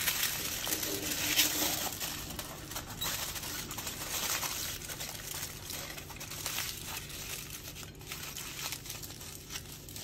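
Aluminium foil crinkling and crackling as hands wrap it around a rolled flatbread, loudest in the first couple of seconds and fading toward the end.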